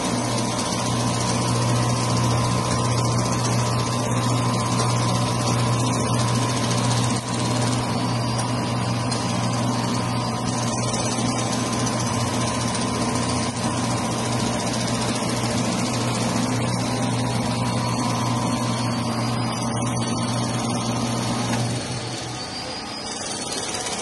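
Automatic parts washer running, its pump motor humming steadily while water sprays from the spray bar onto the parts basket with a steady hiss. About two seconds before the end the pump cuts off, and the hum and spray stop.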